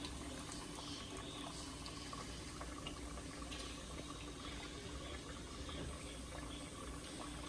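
Breaded pork chops frying in a pot of hot oil: a steady bubbling sizzle with scattered small crackles.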